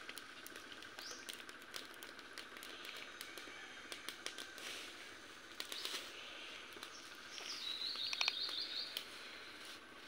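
A bird gives a rapid chattering call lasting about a second and a half, starting about seven and a half seconds in, over faint steady outdoor background noise with scattered soft clicks.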